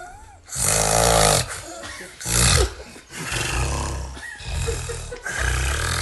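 A person snoring loudly: about four harsh, rasping snores in quick succession.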